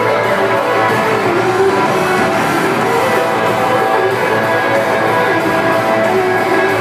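A live band playing a country-pop song, with guitar prominent in the mix.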